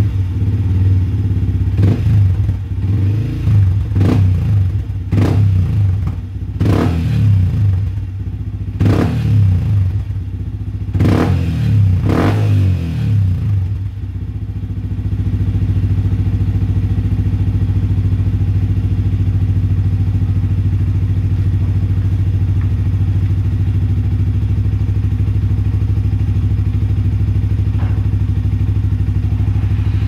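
Yamaha WR155R's single-cylinder engine through a Norifumi Rocket 4 aftermarket exhaust, revved in a series of about eight short throttle blips, each rising and falling quickly in pitch. About fourteen seconds in it settles to a steady idle.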